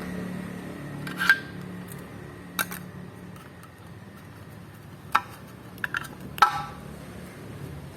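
Hard objects knocking and clinking against each other, about six sharp strikes spread out, the last one ringing briefly, over a low steady hum.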